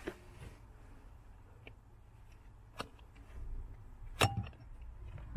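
Plastic alignment clips clicking as they are fitted onto an aluminum pedal cover by hand: three sharp clicks, the loudest about four seconds in with a brief ring, over a low steady rumble.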